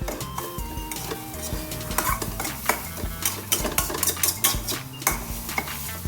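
Stir-frying: a spatula scraping and clinking against the pan over and over while the food sizzles. A background melody plays underneath.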